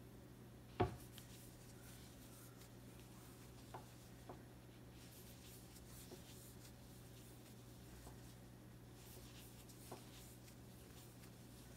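Faint rustle and scratch of a crochet hook working cotton yarn, over a low steady hum. A sharp click comes about a second in, with a few softer ticks after it.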